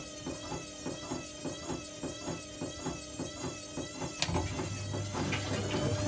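Zanussi ZWF16070W1 washing machine drum turning slowly with a regular swish about three times a second as the load tumbles. About four seconds in there is a click, and the motor begins to speed up, a low hum growing with a rising whine as the drum ramps toward spin.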